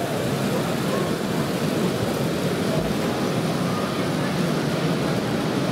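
Steady background din of a busy exhibition hall, a continuous rumbling murmur with no separate events.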